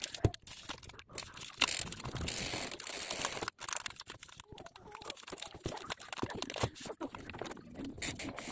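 Paper ream wrapper crinkling and tearing as copy paper is pulled out, then sheets rustling and being handled, with scattered light clicks and knocks. The rustling is heaviest from about one and a half to three and a half seconds in.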